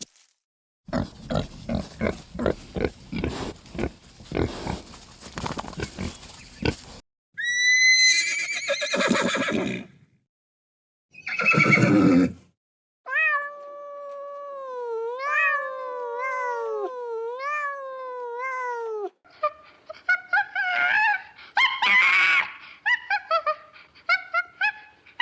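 A run of separate animal sound clips with short silent gaps, led by a horse neighing: a high whinny that falls steeply in pitch about eight seconds in, then a long wavering call, with a stretch of rapid pulsing sounds before it and shorter calls near the end.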